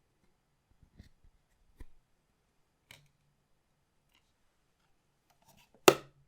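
Collectible cards and their packaging handled on a table: a few faint taps and rustles, then one sharp, loud click near the end.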